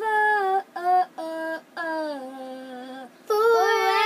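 A child singing unaccompanied: held, sustained sung notes in short phrases with brief breaks between them, the pitch sliding down near the middle.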